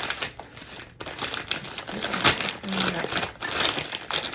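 Packaging crinkling and rustling, with small irregular clicks and knocks, as a boxed shotgun is unpacked by hand.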